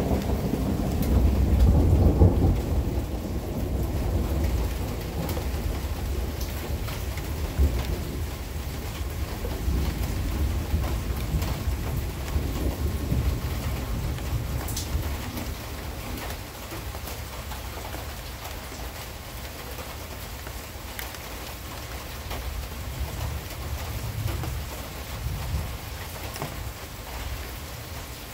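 Thunder rumbling, loudest about two seconds in and dying away slowly over the next dozen seconds, with a weaker rumble near the end. Steady rain falls throughout, with scattered ticks of drops.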